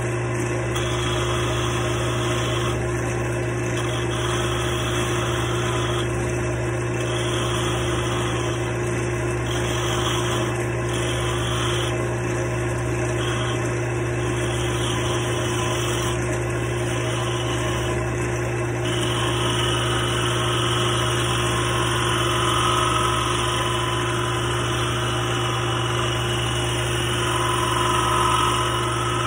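Wood lathe motor running with a steady hum while a skew chisel cuts the spinning wooden dowel, the cutting hiss coming and going in short passes, then steadier in the last third.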